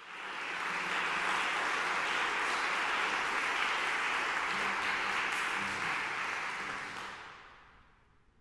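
Audience applauding steadily, dying away about seven seconds in.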